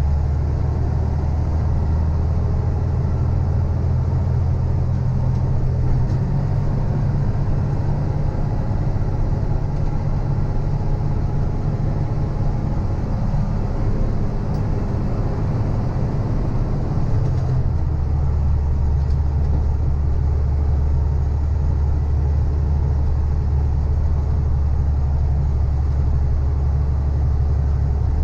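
Heavy diesel engine running steadily with a deep, constant rumble. Its tone changes about two-thirds of the way through, as with a change in engine speed or load.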